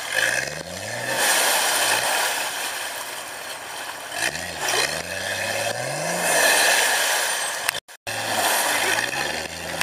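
Nissan Patrol 4x4's engine revving up and falling back in repeated short bursts as the vehicle crawls along a muddy off-road track. The sound cuts out for a moment about eight seconds in.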